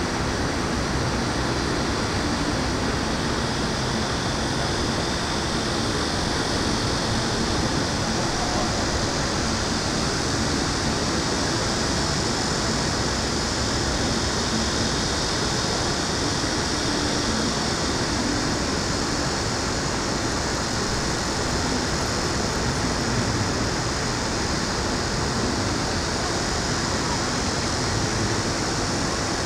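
Steady city ambience: a continuous wash of distant traffic noise with no distinct events.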